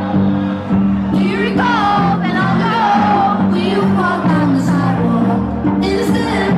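Loud electronic dance music from a DJ set over a club sound system: a repeating bassline with a sung vocal line over it.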